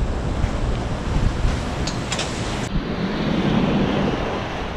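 Wind buffeting the microphone over the steady wash of ocean surf, with a few light clicks partway through.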